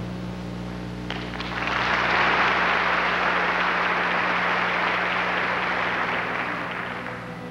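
Audience applauding, swelling in about a second in and fading away near the end, over a steady low hum.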